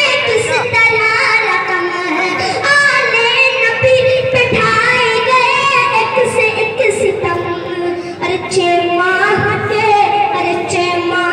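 A boy singing a naat, an unaccompanied Urdu devotional song, into a microphone, in long melodic phrases that glide and bend in pitch.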